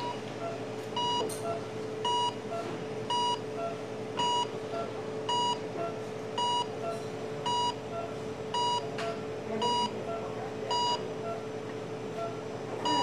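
Electronic beep repeating evenly about once a second, over a steady hum.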